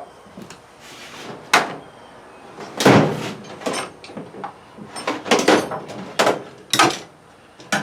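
A series of sharp knocks and clunks of hard objects being handled and set down, about eight irregular strikes over several seconds, the loudest about three seconds in.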